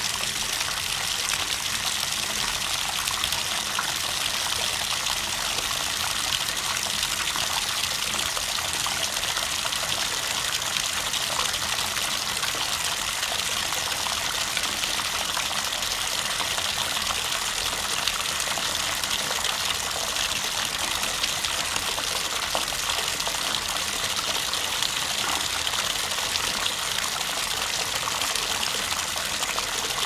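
Bathtub faucet running steadily, water gushing into the tub in an unbroken, hissy splash.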